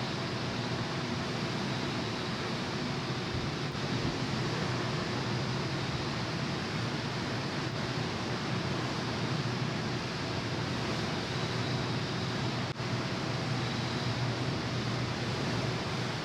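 Steady rushing noise of a large car ferry under way at sea, an even wash over a low, constant hum.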